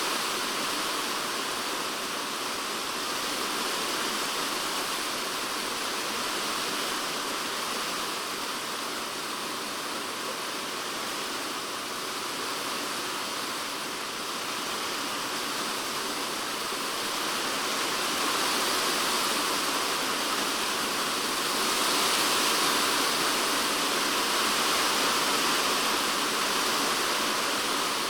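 Typhoon rain falling on a polycarbonate shed roof, heard from inside the shed: a dense, steady hiss that swells a little louder about two-thirds of the way in.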